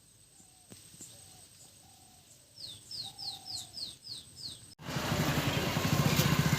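Small birds calling: soft short calls, then a quick run of seven falling chirps about three seconds in. Near the end a much louder, steady machine-like noise cuts in abruptly.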